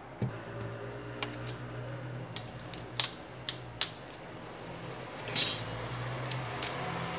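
Small clicks and taps of a disassembled smartphone and hand tools being handled and set down on a silicone repair mat, with one brief louder rasp about five and a half seconds in, over a steady low hum.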